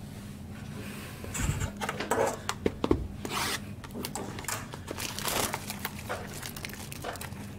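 Trading-card pack wrapper crinkling and tearing open, with cards handled by hand. A run of crackles and short ticks starts about a second in.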